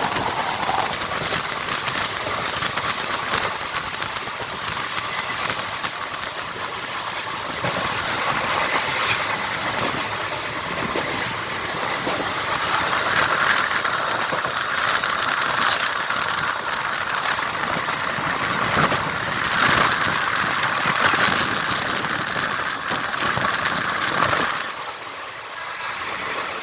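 Passenger train running along the track: a steady rolling noise of wheels on rails with scattered clanks, which drops off sharply about 24 seconds in.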